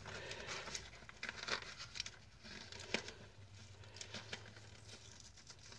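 Faint rustling and crinkling of packaging being handled, with scattered light clicks and taps.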